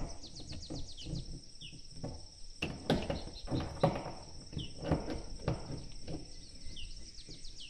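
Crickets trilling steadily with a bird chirping, including quick runs of falling chirps near the start and again near the end. A handful of irregular knocks from hands-on work come through in the middle.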